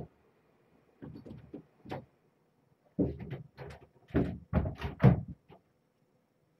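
A run of dull knocks and bumps, several close together, loudest between about four and five seconds in.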